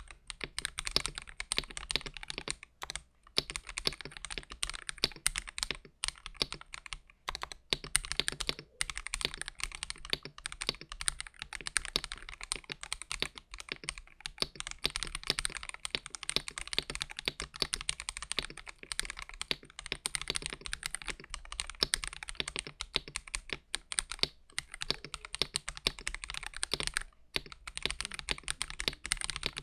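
Stock Epomaker Royalaxe Y68 65% mechanical keyboard, with a steel plate and silicone dampening, being typed on continuously with a few short pauses.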